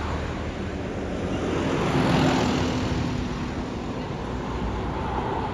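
A road vehicle passing by, its noise swelling to a peak about two seconds in with a low engine hum, then fading.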